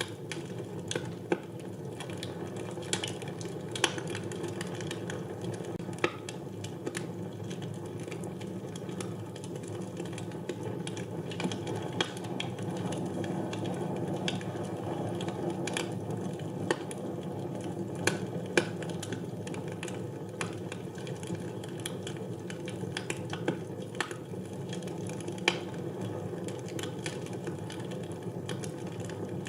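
Wood fire burning in a fireplace: a steady low rush of flame with sharp crackles and pops at irregular intervals.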